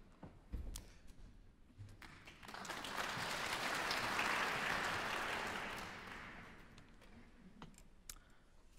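Applause from a small group of hands, swelling about two and a half seconds in and dying away a few seconds later, with a few scattered knocks.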